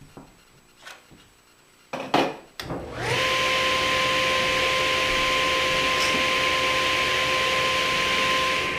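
A few light knocks as the workpiece is handled, then a table saw switched on about three seconds in: its motor spins up quickly and runs steadily with a high whine over a loud hiss.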